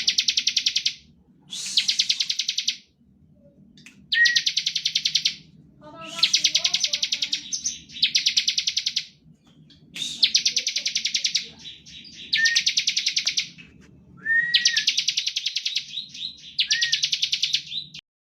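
Bar-winged prinia (ciblek) singing its rapid buzzing trill, the 'ngebren' song, in about eight bursts of a second or so each with short pauses between. The audio cuts off just before the end.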